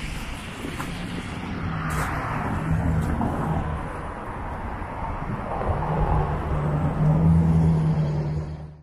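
City street traffic: a motor vehicle's engine hum that swells twice over general road noise, fading out at the very end.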